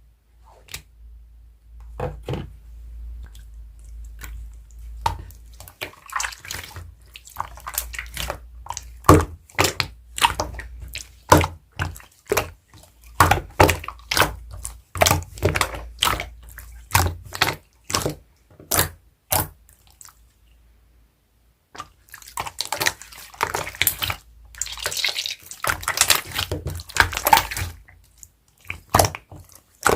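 Slime being pressed and stretched by hand, giving a run of sharp wet pops and clicks. After a short pause it breaks into a denser stretch of crackling pops.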